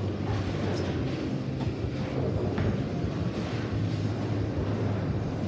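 Steady low rumble of a bowling alley, with a few faint knocks.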